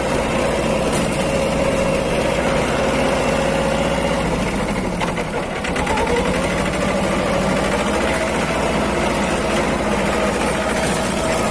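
Mahindra Jivo 245 DI compact tractor's two-cylinder diesel engine running steadily as the tractor is driven. Its note dips briefly about five seconds in, then picks up again a little higher in pitch.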